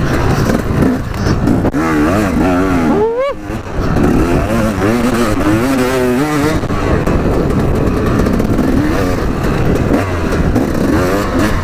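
Dirt bike engine running under way on a rough trail, its revs rising and falling as the rider works the throttle, with a sharp climb and drop in pitch about three seconds in.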